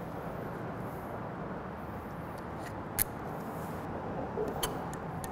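Steady room hum and hiss with a few soft clicks, one sharper about three seconds in, from a stainless marinade injector being worked into raw chicken.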